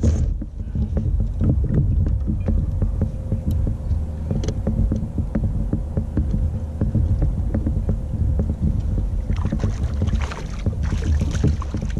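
Steady low rumble of wind buffeting a kayak-mounted camera microphone, with scattered knocks as the angler shifts about in the kayak. About nine to eleven seconds in, splashing as a small trout is brought to the landing net.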